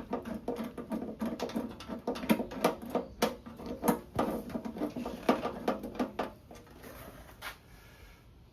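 Small metal hardware clinking and rattling: oil pan bolts and washers being picked out and handled, a quick irregular run of clicks that thins out after about six seconds.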